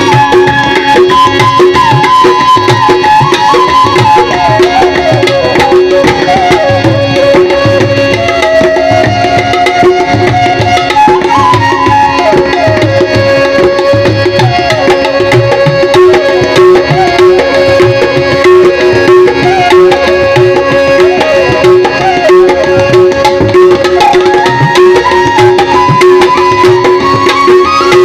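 Tabla playing a steady rhythm with deep bass strokes, over a held drone and a slowly wandering melodic line.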